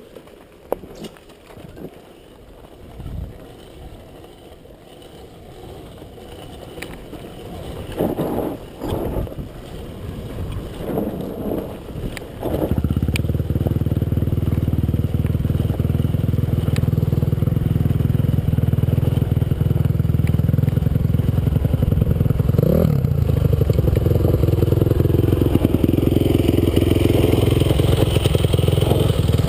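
Motocross motorcycle engines: at first uneven, with a few surges, then a sudden loud, steady low rumble from about a third of the way in.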